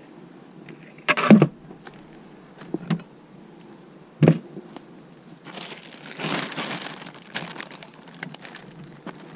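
Beehive equipment being handled: three sharp knocks about a second apart, the first the loudest, then a longer rustling scrape.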